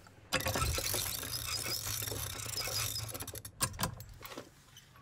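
Cylinder music box being wound by its side crank: a rapid ratcheting clicking of the winding mechanism, followed by a few separate clicks near the end.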